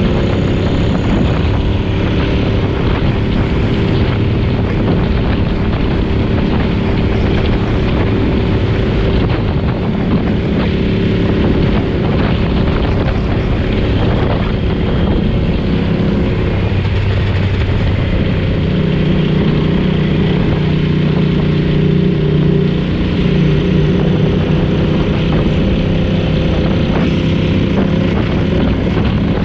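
Vee Two Alchemy motorcycle's Ducati V-twin engine running while the bike is ridden along the road. Its note is steady at first, then rises and falls through the second half.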